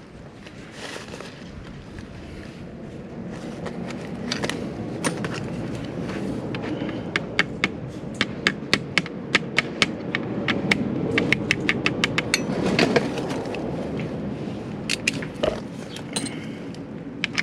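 Hand tools working on a motorcycle's rounded-off oil drain bolt. Sharp metal taps come in a quick run of about three a second in the middle, with scraping and knocking around them, typical of a socket being hammered onto the stripped bolt.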